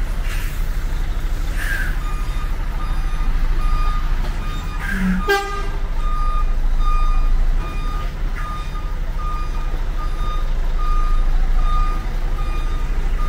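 Heavy diesel machinery running with a deep, steady rumble while a reversing alarm beeps in a steady rhythm, starting about two seconds in. A single sharp knock about five seconds in.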